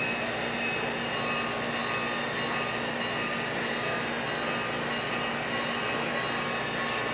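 Model railroad freight train rolling steadily along the track: a continuous whir and rumble of the cars' wheels, with a steady hum underneath.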